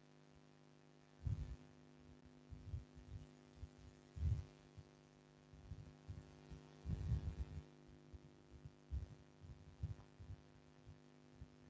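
Faint steady electrical mains hum, broken by soft, irregular low thumps. The loudest thump comes about four seconds in, and there is a cluster of them around seven seconds.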